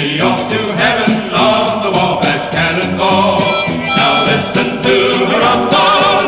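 Background music: a vocal group singing a country-style song over instrumental backing.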